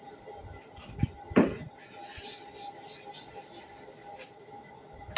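Small metal parts clinking and knocking against a hard surface: two sharp knocks about a second in, the second louder, followed by light scraping and rattling.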